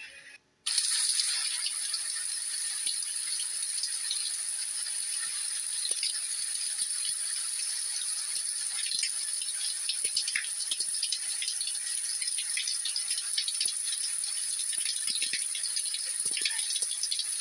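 Heavy thunderstorm rain pouring down: a steady dense hiss of drops peppered with many small sharp clicks. It cuts in abruptly just under a second in.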